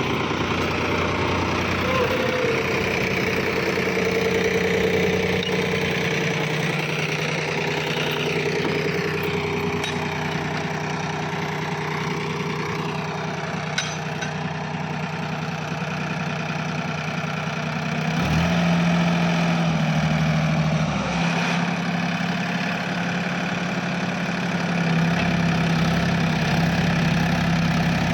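Heavy diesel machinery engine running steadily. It revs up about eighteen seconds in, drops back a few seconds later, and rises again near the end, as under hydraulic load.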